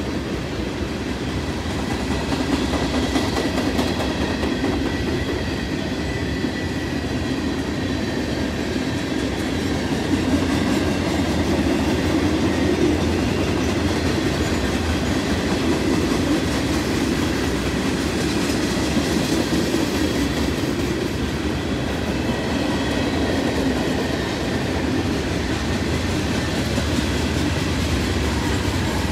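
Freight train cars rolling steadily past on the rails: a continuous rumble of wheels on track, with faint steady high tones from the wheels.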